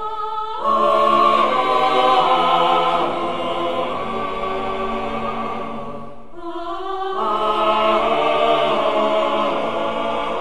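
Choir singing long held chords as a heavenly-choir meme sound effect, in two swelling phrases with a brief break about six seconds in.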